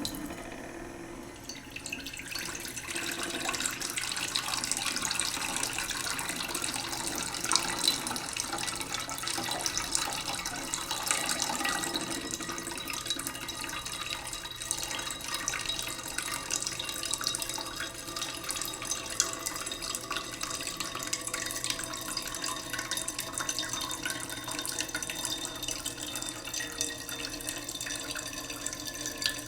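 Tap water running in a steady stream into a cooking pot in a sink, slowly filling it. Faint tones in the rush of water drift slowly in pitch as the pot fills.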